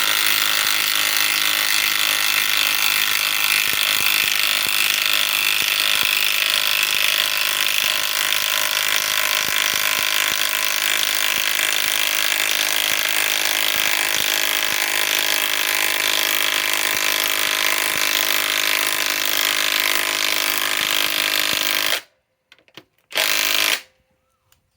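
Cordless impact driver hammering continuously as it drives a 6-inch lag screw into wood without a pilot hole, which makes the driving hard. It stops abruptly about 22 seconds in, followed a second later by one short burst.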